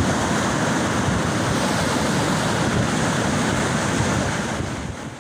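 Ocean surf washing steadily onto the beach, with some wind on the microphone; it fades out near the end.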